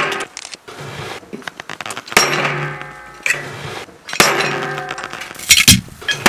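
A handful of sharp metallic strikes at irregular intervals, each left ringing with sustained tones, with a quick cluster of strikes near the end.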